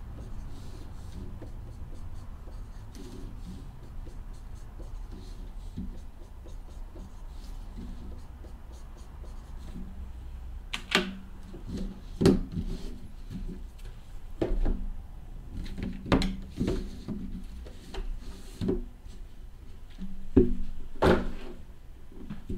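Marker scratching on the wrapping of cardboard card boxes. From about halfway on, a series of sharp knocks and thumps follows as the boxes are handled and set down on the table.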